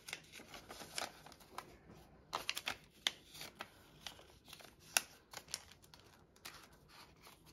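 Paper banknotes being handled: faint, irregular rustles and crisp snaps as a bill is folded and slipped into a clear plastic binder pouch.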